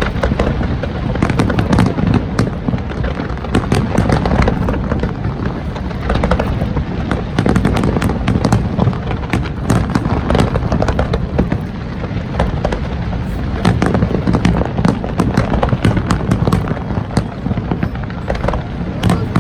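Aerial fireworks going off in rapid, dense succession: many sharp cracks and bangs close together over a continuous low rumble.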